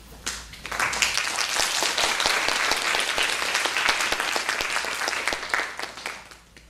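Audience applauding, starting about half a second in, quickly at full strength, then dying away near the end.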